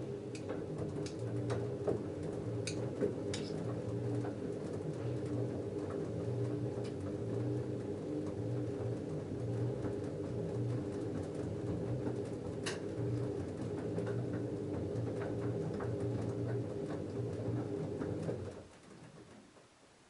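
LG F10A8HDS5 direct-drive front-loading washing machine tumbling a wet load of denim: a steady motor hum with the load moving in the drum and occasional sharp clicks. The drum stops about 18 seconds in and the sound dies away.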